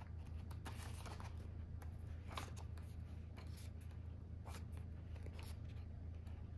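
Pages of a paperback colouring book of thin print-on-demand paper being turned by hand: a string of faint paper swishes and rustles, over a steady low hum.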